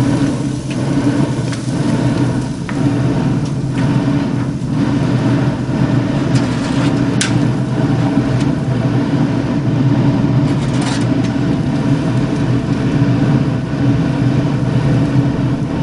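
Steady mechanical hum of a running motor. A few light metallic clinks sound about six to eleven seconds in, as a steel spatula works on the grill grate.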